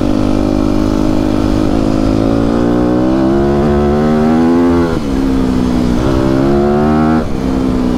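Enduro motorcycle engine pulling under throttle. Its pitch climbs steadily, drops sharply about five seconds in, climbs again, and drops once more near the end.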